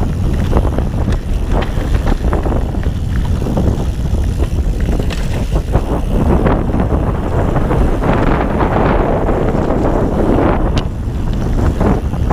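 Wind buffeting the camera microphone as a Ghost Riot mountain bike rolls fast down a dirt forest trail, with the tyres rumbling over the ground and the bike rattling and clattering on bumps.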